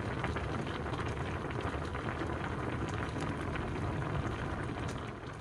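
Red braising sauce of Korean braised mackerel with radish (godeungeo jorim) bubbling at a simmer in a stainless steel pot, a steady dense crackle of many small pops.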